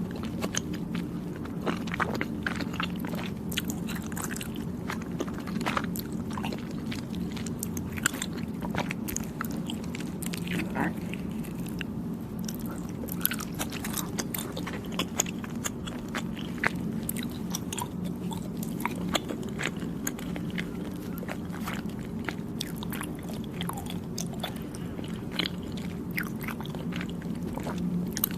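Close-miked chewing and biting of soft, chewy Thai desserts: a steady run of wet mouth clicks and smacks, over a steady low hum.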